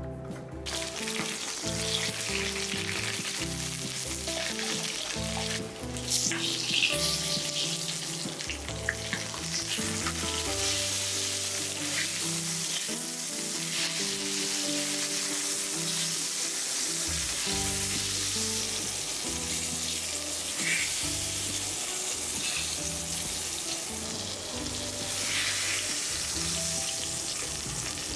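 Eggplant pieces frying in hot oil in a stainless steel pot: a steady sizzle that sets in about half a second in, with the spatula stirring and turning the pieces now and then.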